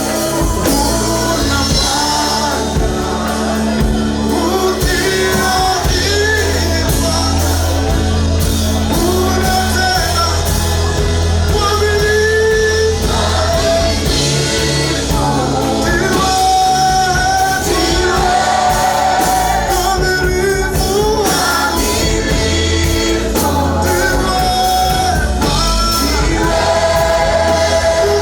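Gospel praise and worship song sung by a group of singers over a live band, with a steady bass line and drums.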